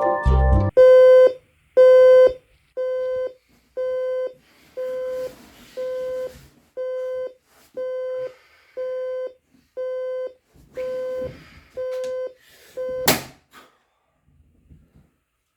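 Electronic alarm clock beeping: a single-pitched beep about once a second, thirteen times, the first two louder. Then one loud sharp knock, and the beeping stops.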